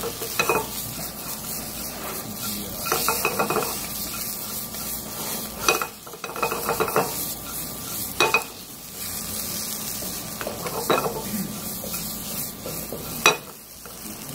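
Bacon and diced onion and carrot sizzling as they sauté in a lightly oiled frying pan, stirred with a wooden spatula. A few sharp knocks of spatula and pan come about 6, 8, 11 and 13 seconds in, the last the loudest.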